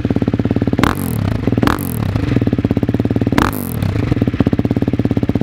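Husqvarna Vitpilen 701's single-cylinder engine running with a fast, even beat, with three short sharp bursts about one, two and three and a half seconds in.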